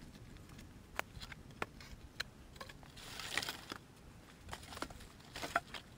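Wooden branches knocking and rustling as they are picked up and laid onto a frame of forked sticks and a crossbar. There are several short sharp knocks, and brief rustling scrapes around the middle and again near the end.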